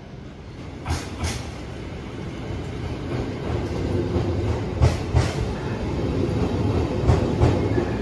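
JR E353 series electric train running past along the platform: a rumble that grows louder, with the wheels clacking in pairs over rail joints three times.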